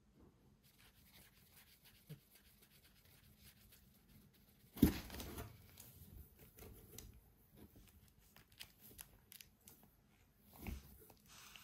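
Cat moving inside a cardboard box: scratching and rubbing against the cardboard as it paws and bites at a feather wand. The box gives a sharp knock about five seconds in and another near the end.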